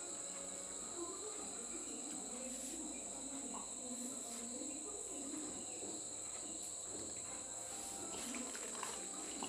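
Crickets trilling steadily, a continuous high-pitched tone.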